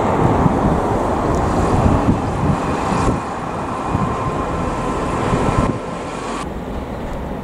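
Diesel multiple unit running past at a distance, its engine and wheels a steady rumble under heavy wind noise on the microphone, with a faint steady whine in the middle of the passage.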